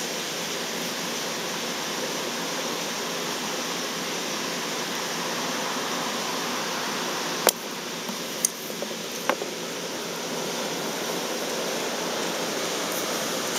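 Steady hiss of room noise, with three short sharp clicks about halfway through, the first the loudest, as small metal snap swivels are handled and clipped together.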